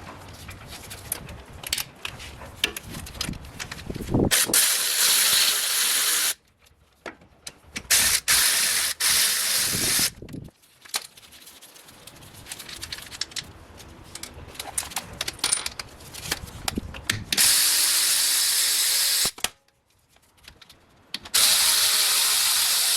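A powered wrench running in four bursts of about two seconds each, undoing the nuts on a Toyota Hilux's rear axle so the backing plate and axle can come out. Scattered clicks and knocks of tools and parts sound between the bursts.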